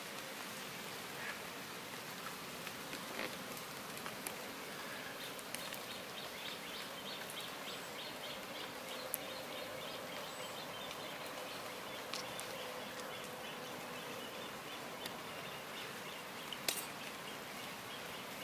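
Light rain falling on a lake and the leaves along its shore: a steady soft hiss with scattered single drops, and a faint steady hum underneath.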